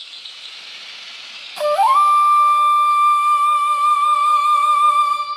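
Andean flute music: after a soft hiss of background ambience, the flute comes in about a second and a half in, slides up into one long held note over a lower sustained tone, and fades just before the end.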